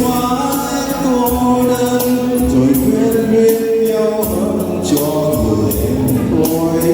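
A Vietnamese song with sung held notes over backing music with a steady beat.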